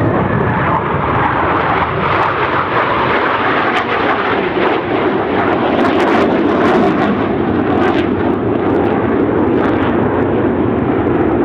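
Jet engines of a formation of KAI T-50B Golden Eagle jets flying past: a loud, steady rushing noise that holds through.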